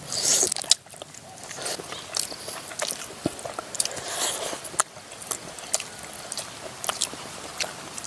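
Eating sounds: chewing, with scattered sharp clicks and short scrapes of utensils against a plate as rice and bird meat in broth are eaten.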